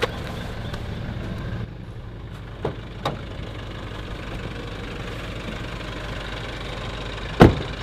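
Nissan SUV's engine idling steadily, with two light knocks about three seconds in and a loud car door slam near the end as the driver's door is shut.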